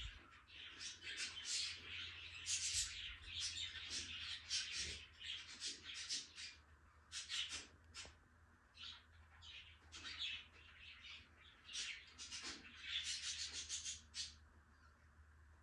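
Small birds chirping: many short, high calls in quick, overlapping succession, stopping near the end.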